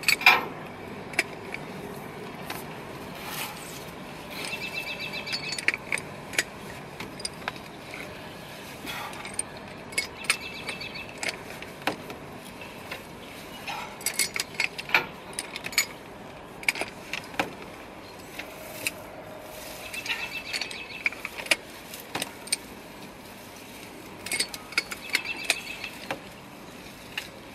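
Socket wrench driving a helical earth anchor into the ground by hand: bursts of metallic clicking and clinking every few seconds as the wrench is swung and reset.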